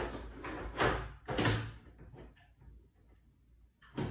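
Knocks and scrapes of a computer power supply and its cable bundle being handled and fitted into a metal PC case: two loud knocks in the first second and a half, then a sharp knock near the end.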